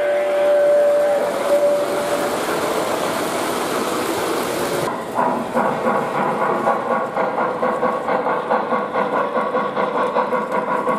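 O gauge model steam locomotive sound system: a steam whistle blows and ends about two seconds in, over a running-train noise. About halfway through, a steady rhythmic chuffing with wheels clattering on the track takes over.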